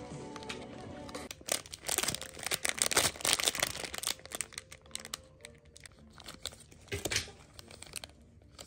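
Background music stops about a second in. Then comes a burst of rapid crinkling and crackling, like something being crumpled or torn, densest for the next few seconds and growing sparser after that.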